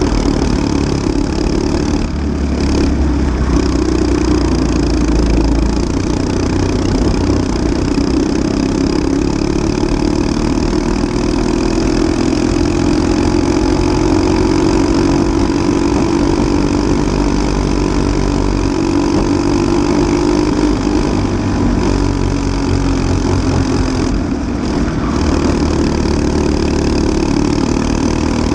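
Onboard sound of a Briggs & Stratton LO206 single-cylinder four-stroke kart engine running under load on track. Its pitch rises slowly through the middle and falls again, with two brief dips, about two seconds in and near the end.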